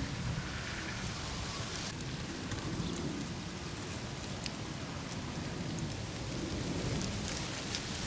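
Wind buffeting the microphone outdoors: a steady low rumble under an even hiss, with a few faint ticks.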